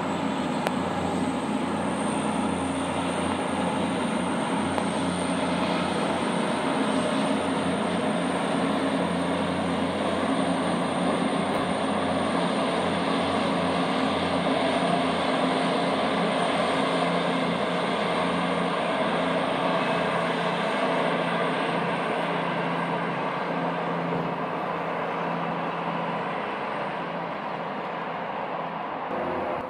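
A train running through the station, heard from above: a long steady rumble with a thin high whine that swells a little and eases off near the end.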